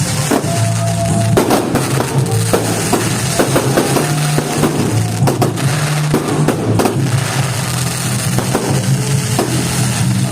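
Fireworks going off in irregular bangs and crackles over loud music with a heavy bass and drum beat.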